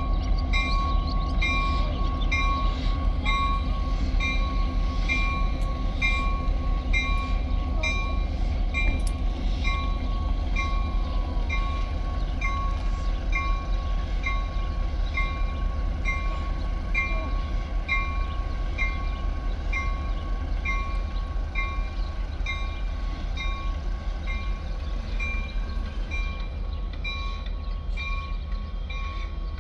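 Strasburg Rail Road diesel locomotive 8618 running steadily as it hauls N&W 611, under a ringing tone that repeats about twice a second.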